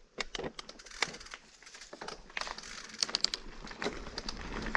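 Irregular crackles and snaps, like dry material being crushed, getting busier toward the end.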